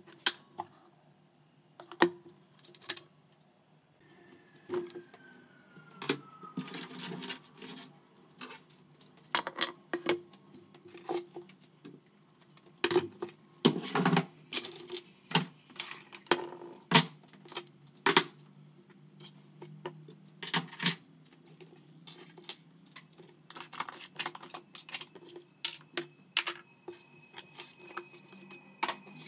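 Irregular clicks and light knocks of small hard objects being handled on a wooden workbench, a few of them sharper and louder. A faint thin tone glides downward twice, once early and once near the end. The saw's motor is not running.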